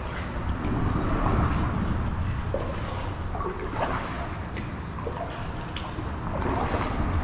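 Water trickling and splashing with small drips, over a steady low rumble.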